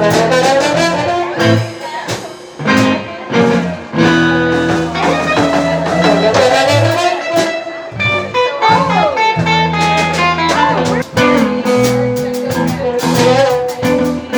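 Live band playing a bluesy, jazzy number: a guitar carries the melody with bending notes over a held bass line and drums.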